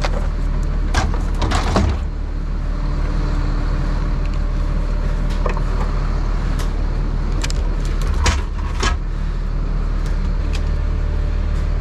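Bucket truck's engine idling steadily, with a few sharp knocks and clanks, the loudest about eight seconds in.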